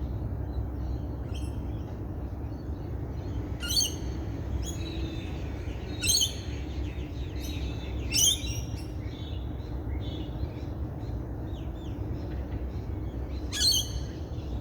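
Wild birds calling: four loud, sharp calls stand out, spread across the stretch, with softer chirps and song notes in between, over a steady low background rumble.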